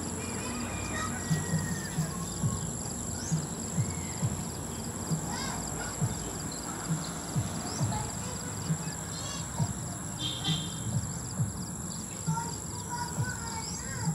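Footsteps on the ground, about two steps a second, with a steady high-pitched insect drone and occasional bird chirps behind them.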